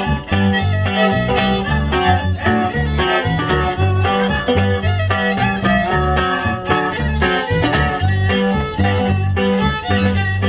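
Live dance music led by a violin, with guitar and a steady, regular bass beat underneath.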